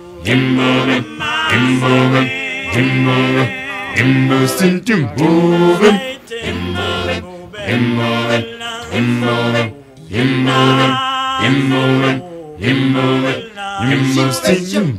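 Background music: a cappella group singing, several voices in short repeated phrases with no instruments.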